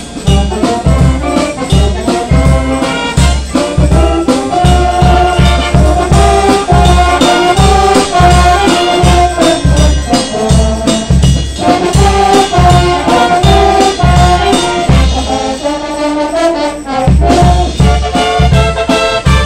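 School wind band playing, with saxophones and brass carrying the melody over a steady low beat about twice a second; the low beat drops out for about a second near the end.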